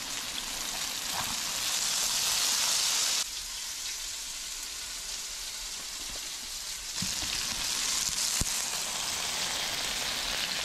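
Pieces of walleye frying in hot oil in a pan: a steady sizzle. It is louder for the first three seconds and again near the end, with a couple of light ticks toward the close.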